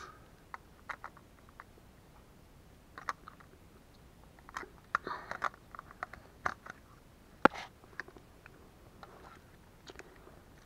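Small clicks, taps and scrapes of hard plastic as a battery is pushed at the battery compartment of a Canon PowerShot SX610 compact camera and the camera is turned in the hands, with one sharp click about seven and a half seconds in the loudest. The battery will not fit.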